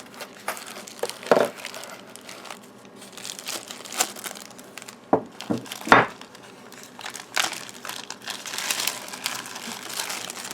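Packaging crinkling and rustling as it is handled and opened, with a few knocks about a second in and again around five to six seconds in.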